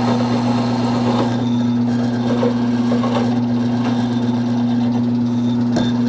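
Milling machine spindle motor running with a steady hum while a half-inch end mill bores out the worn, egg-shaped hole in a truck clutch arm, making it round again so a bushing can be fitted.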